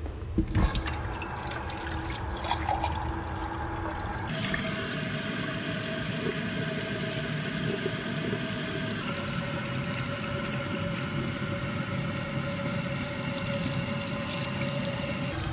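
Water running from a kitchen sink faucet, filling a glass: a steady rush of water that gets fuller about four seconds in.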